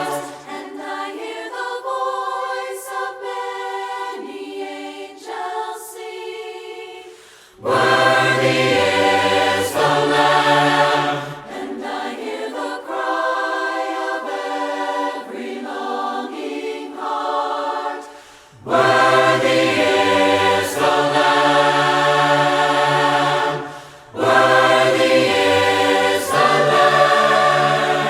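Mixed choir singing a hymn a cappella in parts. The phrases alternate between the upper voices alone and full harmony with the low voices.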